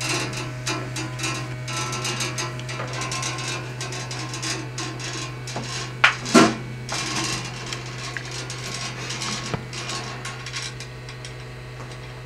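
Metal probe of a handheld gas leak detector scraping and tapping along a corrugated stainless-steel gas hose and its brass fittings, over a steady low hum. There are two sharper knocks about halfway through.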